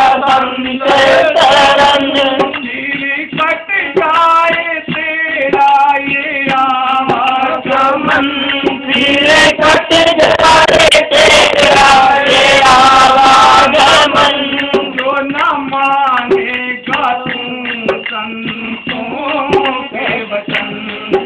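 Men singing a Hindi devotional bhajan together, accompanied by the beat of a dholak hand drum.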